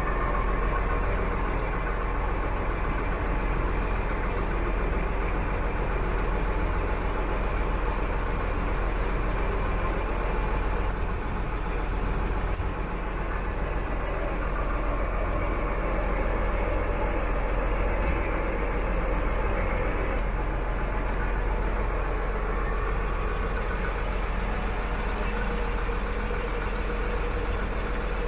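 Boat engine running steadily, a constant low hum that holds the same speed throughout.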